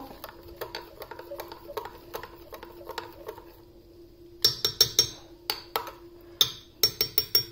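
Gas hob being lit under the pot: an irregular run of sharp clicks from its spark igniter starts about halfway through, over a steady hum.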